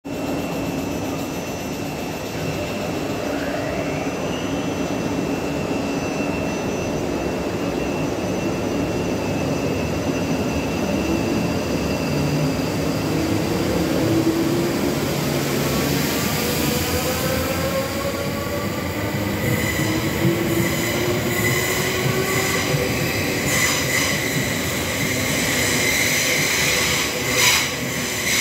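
A Class 458 Juniper electric multiple unit pulling out and accelerating past. Its traction motors whine in several tones that climb steadily in pitch as it gathers speed, over a continuous rumble of wheels on rail. A steady high whine comes in about two-thirds of the way through, and there are two sharp clicks near the end.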